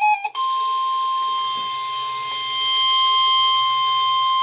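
Weather-radio emergency alert tone: a single steady high tone near 1050 Hz that cuts in a fraction of a second in after a brief gap. It is the warning alarm that announces a flood warning message.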